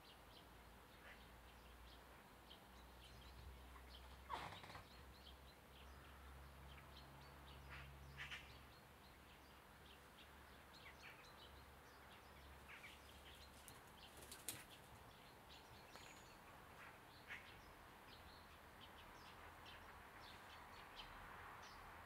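Quiet outdoor ambience with faint, scattered short bird chirps throughout and a few slightly louder brief chirps or flutters, about four, eight and fourteen seconds in.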